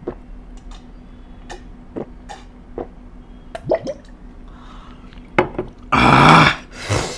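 Eating sounds: scattered wet lip smacks and clicks of chewing, then two loud rushing noisy bursts near the end.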